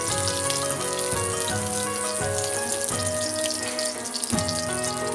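Background music with held notes that change in steps, over a light sizzle of garlic and onion frying in oil in a wok.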